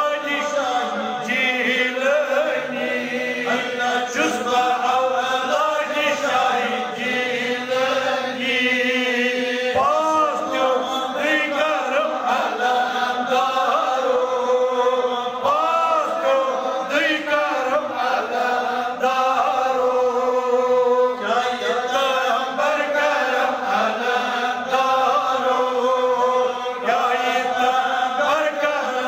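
Sufi devotional chanting: a voice sings a slow, ornamented melody without a break, holding long wavering notes and gliding up and down between them.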